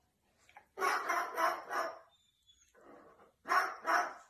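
Barking: a quick run of four short barks about a second in, then two more near the end.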